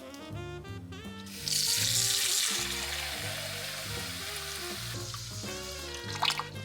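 Food going into a hot oiled pan: a loud sizzle starts suddenly about a second and a half in and slowly dies down, over background music, with a sharp tap near the end.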